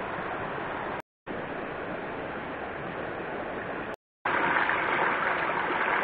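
Shallow mountain stream rushing steadily over rocks and boulders. The sound cuts out briefly twice, and after the second break it is louder.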